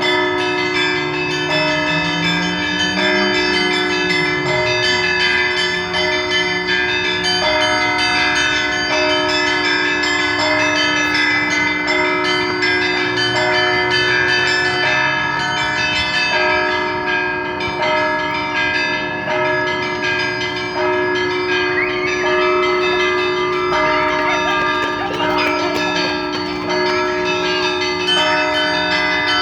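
Orthodox church bells ringing together in a peal: smaller bells strike a quick repeating pattern over the steady ring of larger bells.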